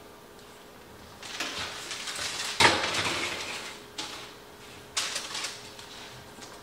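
Metal baking sheet scraped onto a wall-oven rack, with a sharp clank about two and a half seconds in as it lands, and parchment paper rustling as it is pushed into place.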